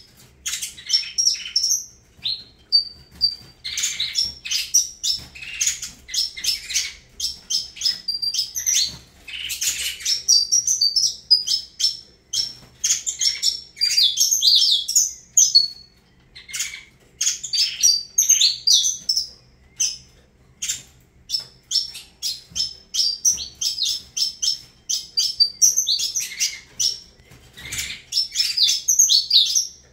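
Saffron finch (canário-da-terra) singing: rapid runs of high chirps and trills in phrases, broken by short pauses.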